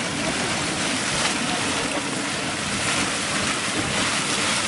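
Steady rushing, surf-like churning of a hot spring or steam vent, even and unbroken.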